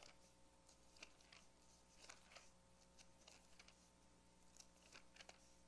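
Near silence: room tone with a faint steady hum and a scatter of soft clicks and rustles.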